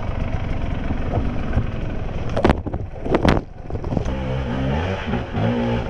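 Enduro dirt bike engine running under load over rough ground, with a couple of sharp knocks partway through and a short dip in the engine. From about four seconds in, the revs rise and fall repeatedly as the throttle is worked.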